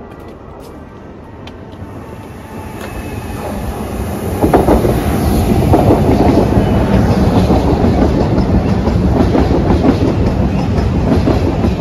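A train going by on the railway, growing louder over the first four seconds or so, running loud and steady with the rumble and rattle of its wheels on the rails, then starting to fade near the end.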